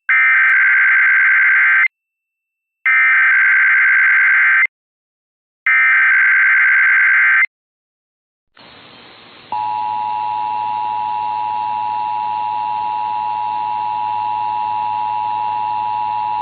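Emergency Alert System broadcast test: three SAME digital header bursts, each just under two seconds long with about a second's gap between them, carrying the alert's coded data. After a short stretch of faint hiss, the steady two-tone EAS attention signal starts about nine and a half seconds in.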